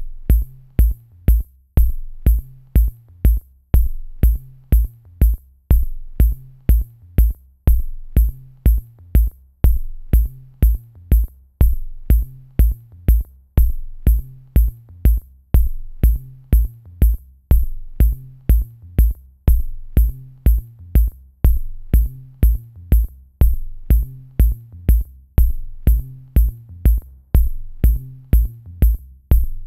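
Background electronic music with a steady drum-machine beat: a low kick drum, high ticking hi-hat and a low bass line.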